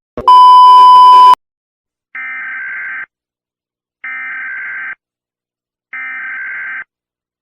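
Emergency Alert System tones: a very loud one-second beep, then three buzzing electronic data bursts of about a second each, a second apart. These are the SAME header codes that open an emergency alert.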